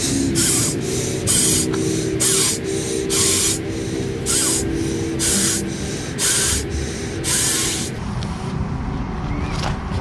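Air mattress being blown up by mouth: repeated hissy breaths, about one strong one a second, as air is drawn in and puffed into the valve. The breathing stops about eight seconds in.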